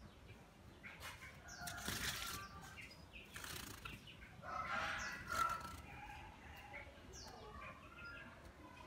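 Red-whiskered bulbul bathing in a shallow water tray, fluttering its wings and splashing in three or four short flurries. Faint bird chirps in the background.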